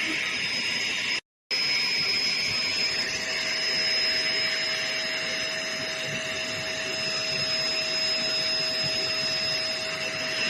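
Hoover HL4 upright vacuum cleaner running steadily, a motor whine with a high tone over the airflow noise. The sound cuts out completely for a moment about a second in.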